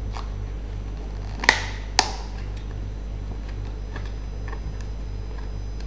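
Two sharp plastic clicks about half a second apart: a thin disposable injection-moulded lid being snapped onto a plastic food container. Faint handling ticks follow over a steady low hum.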